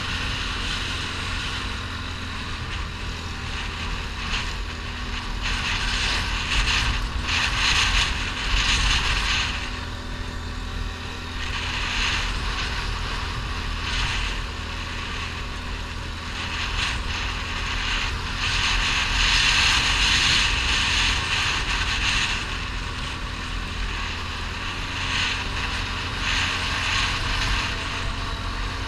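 ATV engine running steadily while the quad rides over a loose gravel track, with a hiss of tyres on stones and wind that swells and fades every few seconds.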